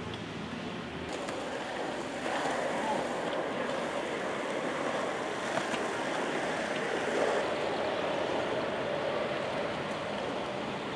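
Skateboard wheels rolling on a paved path as two skateboarders ride past: a steady rolling rumble that swells about two seconds in and eases off near the end.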